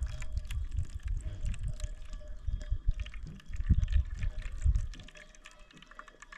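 Water splashing, with many small clicks over a low rumble that drops away about five seconds in.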